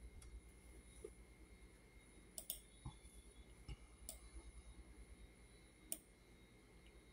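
Near silence with a handful of faint, irregularly spaced computer mouse clicks.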